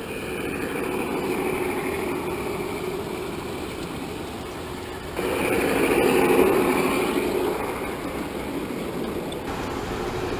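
G-scale model train running on garden track: a steady electric motor hum with a faint whine and wheel noise. It grows louder about five seconds in and eases off a couple of seconds later.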